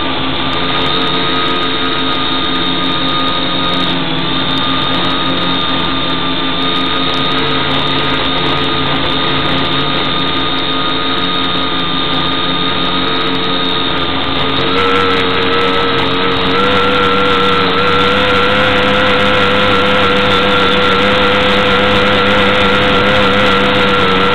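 Quadcopter's electric motors and propellers whining steadily, heard from the onboard camera. About 15 seconds in the whine rises in pitch and gets louder and holds there as the throttle goes up and the quadcopter climbs.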